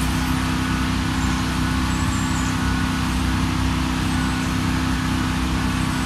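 Wood-Mizer band sawmill running with a steady, even hum.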